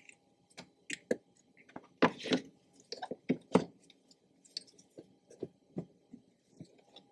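A plastic airbox and air intake tube being set in place and fitted by hand: irregular plastic clicks, knocks and rustles, the loudest about two seconds in and again about three and a half seconds in.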